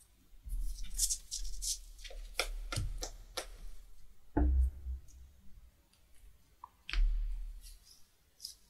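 Trading cards being handled and laid down on a playmat: a string of light clicks and slaps, with a few dull thumps against the table.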